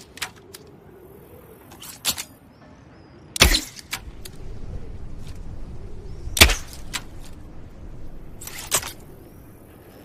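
Bow-and-arrow sound effect: four sharp snaps of bow shots or arrow strikes, irregularly spaced a second or more apart, with a few fainter clicks and a low rumbling haze in the middle.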